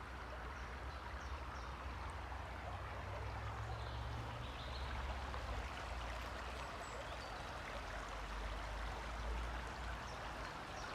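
Shallow stream running and babbling steadily, with a low rumble underneath.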